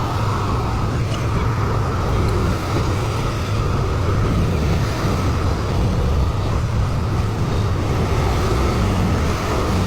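Excavator's diesel engine running steadily, a low, even rumble.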